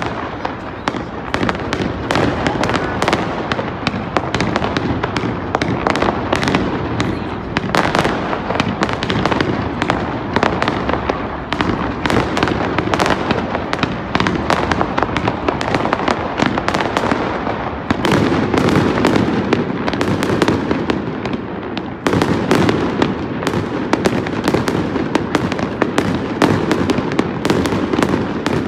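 Fireworks display: a dense, unbroken run of rapid bangs and crackling bursts from aerial shells.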